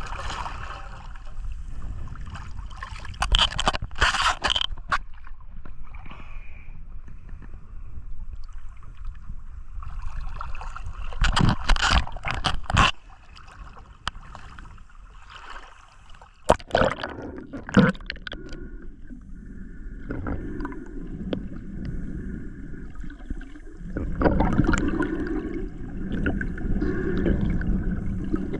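Water sloshing and gurgling around a GoPro in the water, with loud splashing bursts about 3, 11 and 17 seconds in. A steadier low hum joins near the end.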